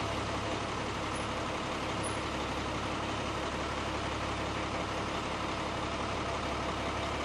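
Parked emergency vehicles, a fire engine and an ambulance, with their engines idling: a steady, unbroken engine drone.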